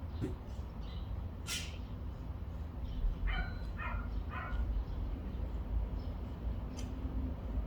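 A dog barking three times in quick succession, about half a second apart, over a steady low rumble. A short hissing burst comes about a second and a half in.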